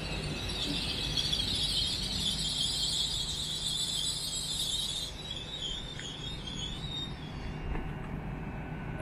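GWR Class 800 train running along the platform with a low rumble and a high metallic wheel squeal, which dies away after about five seconds.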